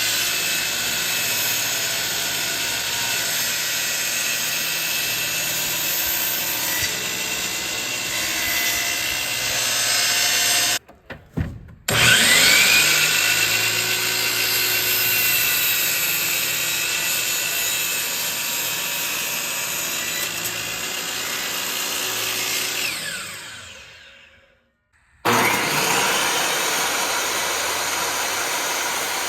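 Electric power saw running and cutting wood boards. About eleven seconds in it stops briefly and spins back up with a rising whine. Near the end it winds down into a second of silence, then starts again.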